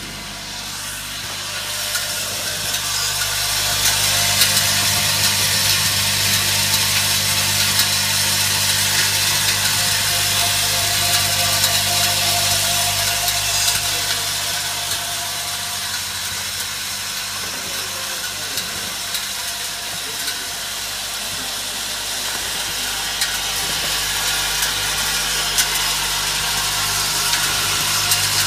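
Vibratory bowl feeder buzzing steadily, with short aluminium tubes rattling and clinking as they are shaken round the bowl and along its feed track. The rattle grows louder over the first few seconds, eases off around the middle and builds again near the end.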